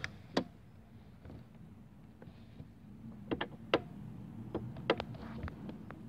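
Handling noise: a scattering of small, sharp clicks and taps from fingers on the hard plastic of a toy car, more of them in the second half, over a faint low steady hum.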